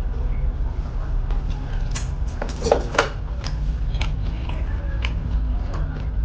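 Close-miked chewing of beef rendang: wet mouth clicks and smacks coming several times a second, with a louder cluster about three seconds in, over a steady low hum.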